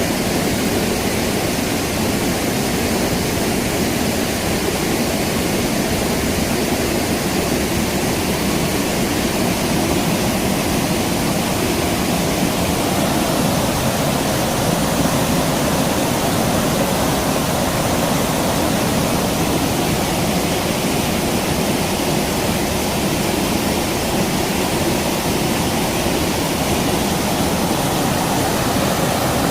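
Creek water flowing, a steady, unbroken rush.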